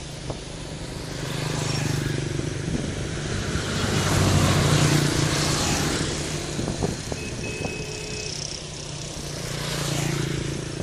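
Engine noise of passing vehicles, rising and falling in three swells over a steady low hum.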